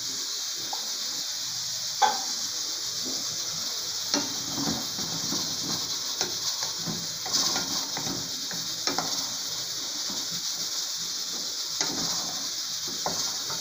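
Grated onion and peas sizzling in an aluminium pot while a wooden spoon stirs them, knocking and scraping against the pot. There is a sharp knock about two seconds in, with further clicks and knocks scattered through the stirring.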